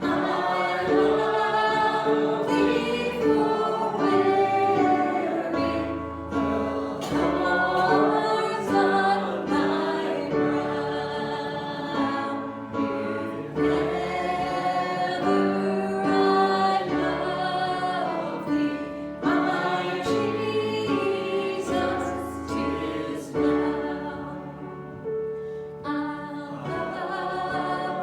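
A church congregation singing a gospel hymn together, holding long notes.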